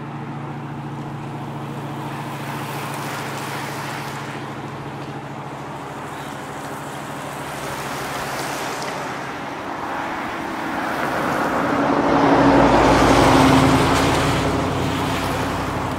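Pickup truck driving past on a wet road: its engine and the hiss of its tyres on the wet pavement swell to a peak near the end and then fade, over steady road noise.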